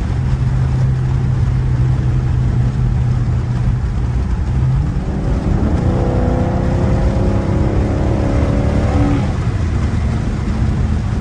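Dodge Charger Scat Pack's 392 HEMI V8, heard from inside the cabin, running steadily at highway cruise with a low drone. About five seconds in it accelerates, its note climbing in pitch for about four seconds before settling back.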